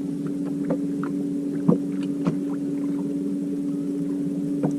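Steady, even-pitched hum of a motor on a bass boat, with a few light knocks.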